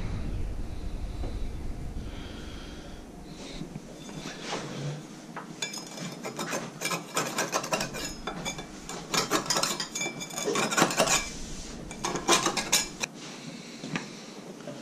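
Metal utensil scraping and clinking against a cast-iron skillet as a deep-dish pizza is loosened and lifted out, in bursts of scrapes and knocks that start about five seconds in.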